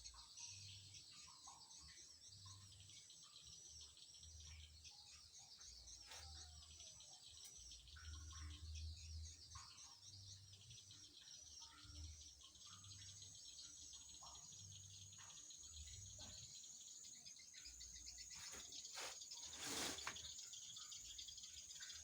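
Faint, dense, rapid high chirping of insects and birds, with a steady high-pitched insect whine. Soft low thuds come and go, and a sharp click sounds about 20 seconds in.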